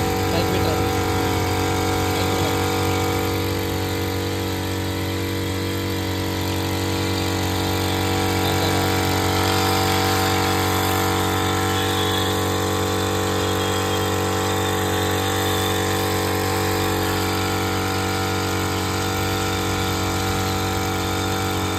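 Power sprayer's motor and pump running steadily with an even hum while its lance sprays a jet of water.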